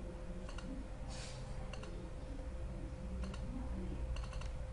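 Computer mouse clicking a few times, short sharp clicks often in pairs with a quick cluster near the end, over a steady faint hum.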